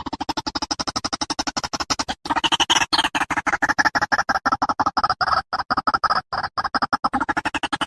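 A rapid stuttering electronic sound effect: short buzzy pitched pulses at about a dozen a second, with a brief break a couple of seconds in.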